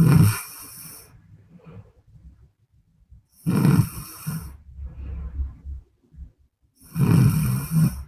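A woman snoring: three loud, rattling snores about three and a half seconds apart, with softer breathing between them.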